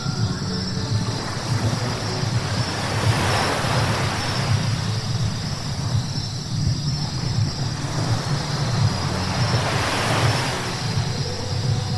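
Car driving on a wet road: a steady low hum with tyre hiss from the wet surface that swells twice, about three seconds in and again about ten seconds in.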